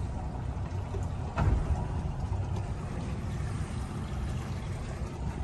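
Twin outboard motors running with a steady low rumble while the boat is maneuvered. There is a brief thump about a second and a half in.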